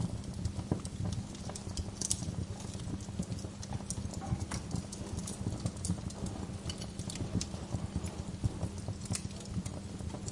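Wood fire in a fireplace crackling, with irregular sharp pops over a steady low rumble of flames; two sharper pops about two seconds in and near the end.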